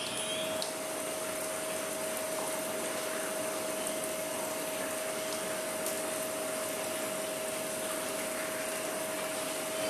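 Steady machine-like hum with a rushing, airy noise and one constant mid-pitched tone, unchanging throughout.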